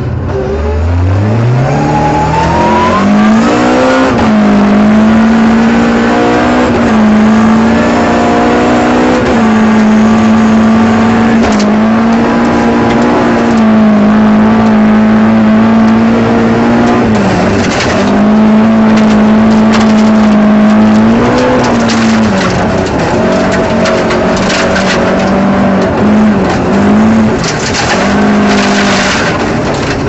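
Ford Escort rally car's engine heard from inside the cabin at full effort on a gravel stage. The revs climb steeply in the first few seconds, then hold high with brief dips at lifts and gear changes. Bursts of stones and gravel clatter against the car past the middle and again near the end.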